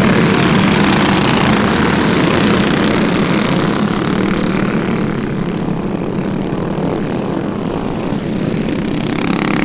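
A pack of minibike engines buzzing hard together as the bikes pull away from a race start, a dense, many-engine drone that eases somewhat midway and swells again near the end.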